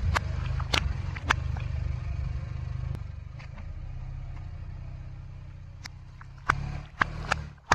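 Car engine idling steadily under sharp pops of water balloons bursting under the tyre. There are three pops in the first second and a half and a louder cluster of three near the end.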